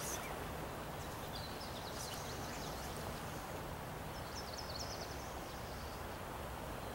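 Steady low outdoor background noise with a small bird chirping in two short runs of quick high notes, one about a second and a half in and another about four seconds in.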